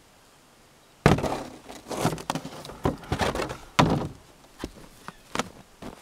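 Hollow plastic thunks and knocks as a snow shovel is dropped into a plastic sled and handled, with the crunch of snowshoes in deep snow in between. The two loudest knocks come about a second in and near four seconds.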